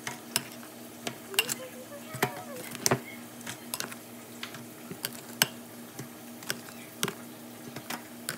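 Metal kitchen tongs clicking and tapping against a glass bowl and an aluminium foil pan as sauce-coated chicken pieces are picked up and moved, in irregular sharp clicks about once or twice a second, over a steady low hum.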